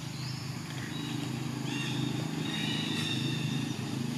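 Baby macaque squealing: a short rising squeal right at the start, then a longer, wavering high-pitched squeal from about two seconds in.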